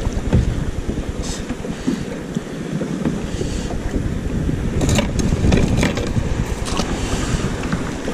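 Wind buffeting the microphone and sea water slapping against a kayak hull, a steady rumble. A few light clicks of fishing tackle being handled come about five to seven seconds in.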